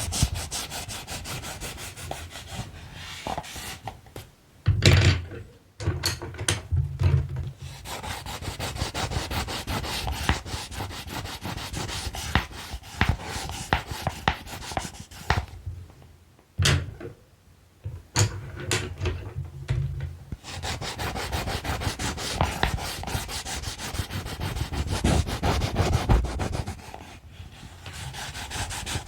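Colored pencils scratching and rubbing in quick, dense strokes. This stops twice briefly, about five seconds in and again near seventeen seconds, each time with a sharp knock.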